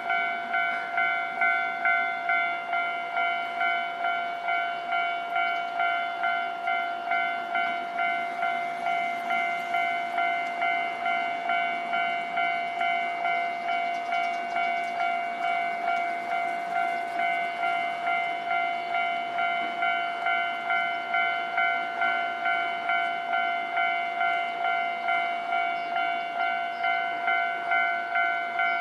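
Japanese railway level crossing alarm ringing its repeated electronic "kan-kan" tone, about two strokes a second without a break, signalling that the crossing is closed for trains.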